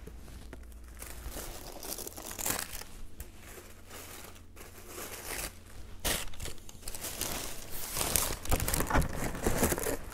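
Tissue paper rustling and crinkling in a shoe box as the wrapping is folded back. It is irregular and grows louder and busier over the last few seconds.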